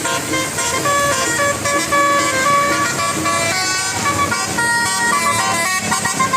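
Bus telolet horn, a multi-tone musical air horn, playing a tune: steady notes that step up and down in pitch every fraction of a second, two or three sounding together.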